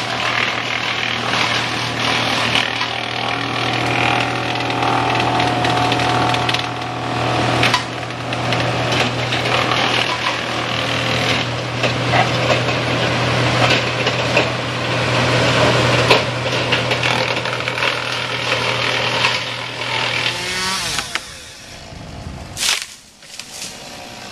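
Chainsaw cutting through a dead oak log, running steadily under load. It drops off about 21 seconds in, and there is a single sharp knock near the end.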